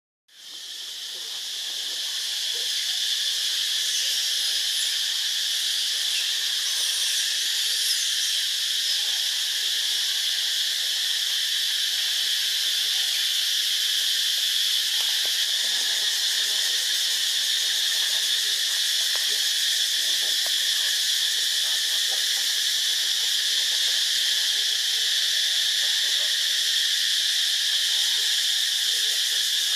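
Steady, high-pitched insect chorus, a dense shrill drone that fades in over the first couple of seconds and then holds level.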